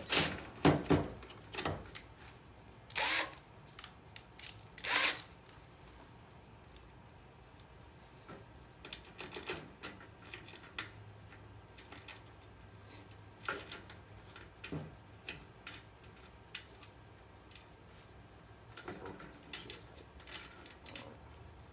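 A cordless drill run in short bursts against metal wall-panel end trim, two or three brief spurts in the first five seconds, followed by scattered light clicks and scrapes of the drill and trim being handled.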